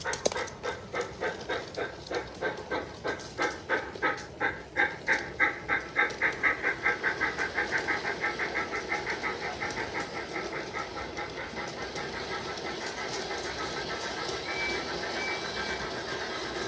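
Bachmann G scale Percy model locomotive's DCC sound decoder playing steam exhaust chuffs as the engine pulls away. The chuffs start at about two a second and quicken until they blur into a steady, rapid chuffing hiss.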